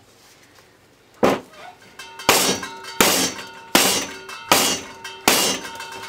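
Freshly poured cold process soap in a loaf mold being knocked down on a stainless steel worktop six times, about one knock every three quarters of a second, each a loud clang with the metal table ringing after it. The knocking is done to bring up and release air bubbles in the soap.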